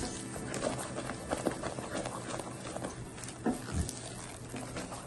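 Silicone spatula beating thick brigadeiro mass around a nonstick frying pan: irregular soft slaps, scrapes and knocks, with a couple of louder knocks about three and a half seconds in. The mass is being worked off the heat to cool it and give it shine.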